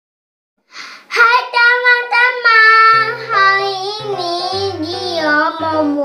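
A child singing a melody, starting about a second in, joined about three seconds in by low instrumental accompaniment.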